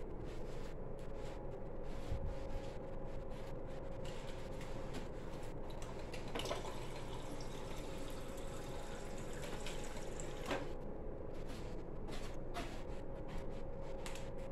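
Hands digging through the loose, dry filling of a plastic bowl: a steady pouring rustle with many small clicks, over a steady hum.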